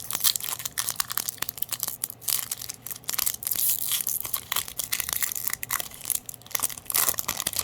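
A foil Pokémon card booster pack wrapper crinkling with dense, irregular crackles as it is handled and torn open.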